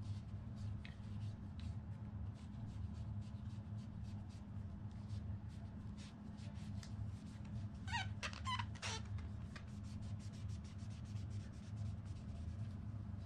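Cloth wiping a fishing rod, a run of short rubbing strokes over a steady low hum, with a few short squeaks about eight seconds in.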